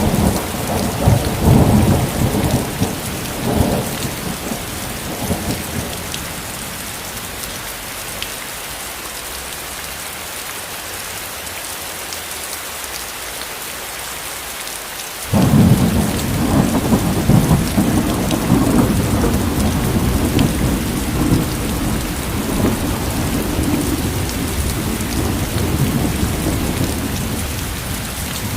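Steady rain hissing in a thunderstorm. Thunder rumbles over it at first and dies away, leaving only the rain for several seconds. About halfway through, a loud thunderclap starts suddenly and rolls on, slowly fading.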